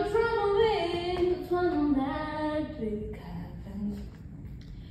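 A song with a woman singing slow, held notes that glide between pitches. The voice drops away about three seconds in and comes back near the end.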